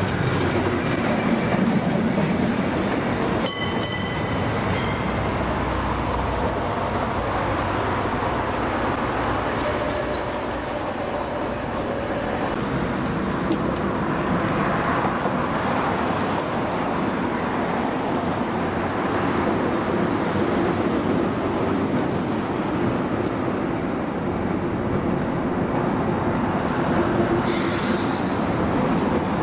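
Tram running along the rails with steady track noise, a short metallic clank about three and a half seconds in, and a brief high wheel squeal about ten seconds in.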